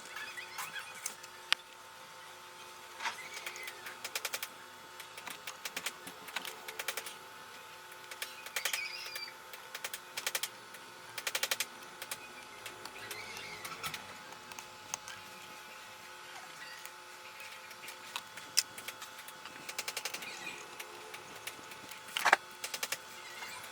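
Scattered small clicks, taps and scrapes of hand soldering work on a TV power-supply board, as a copper wire is soldered to a pad and a transistor's drain pin, over a faint steady whine.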